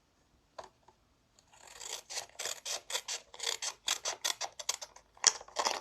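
Scissors cutting into paper along score lines: a quick run of short snips, about three a second, starting about a second and a half in.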